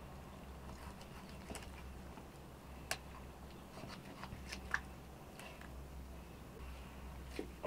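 Raw chicken being torn apart by hand over a metal bowl: soft wet handling sounds with a few sharp clicks and cracks, the loudest a little under five seconds in, over a low steady hum.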